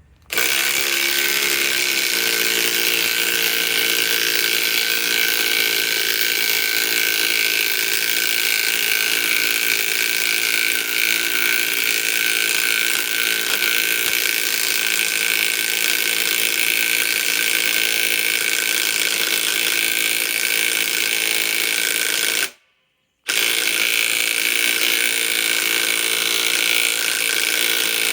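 DeWalt DCF921 Atomic compact 1/2-inch cordless impact wrench hammering steadily under load. It stops for under a second about 22 seconds in, then starts hammering again.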